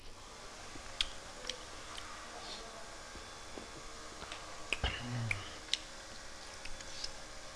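Close-miked eating sounds: scattered sharp mouth clicks and smacks while chewing, with a spoon clinking against the dishes, and a short hummed 'mm' about five seconds in.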